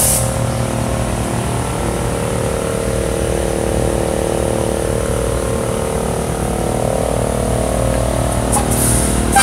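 A steady, unchanging low mechanical hum with a constant drone.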